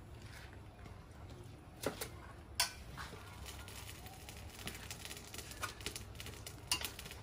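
Metal tongs and a slotted spatula clinking against a stainless steel steamer pot while boiled corn is turned in it: a handful of sharp, scattered clinks.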